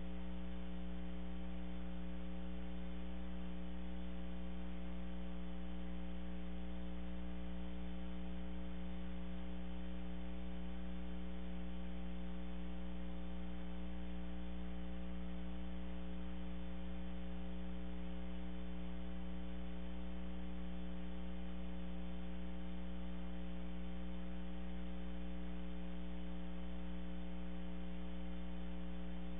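Steady electrical mains hum, a low buzz with several overtones over a constant hiss, unchanging throughout.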